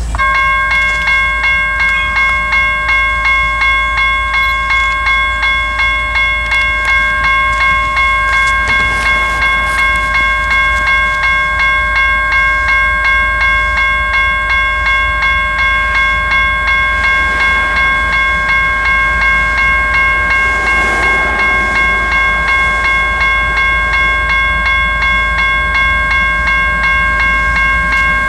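General Signals Type 1 electronic crossing bell switching on at the very start as the crossing activates, then dinging on and on in a steady, even rhythm.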